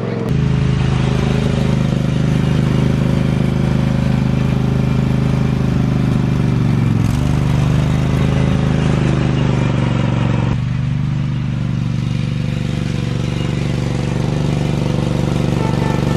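Craftsman GT5000 riding lawn tractor's engine running steadily under way, its pitch dipping briefly about seven seconds in.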